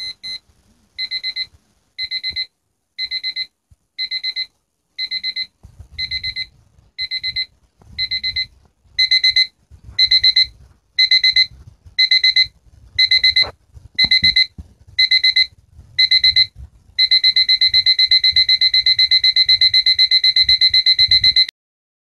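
Q&Q quartz alarm clock's electronic alarm beeping: short bursts of rapid beeps about once a second, growing louder partway through, then running together into continuous rapid beeping for several seconds before cutting off suddenly near the end.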